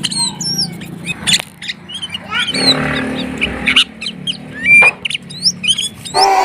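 Sooty-headed bulbul (kutilang) singing a rapid, varied string of chirps and whistled slurred notes, a lively chattering song.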